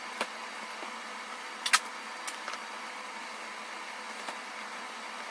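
Sharp taps and clicks from handling cardboard and tape on a box fan, over a steady hiss. The loudest click comes about a second and a half in, with a few fainter ones after it.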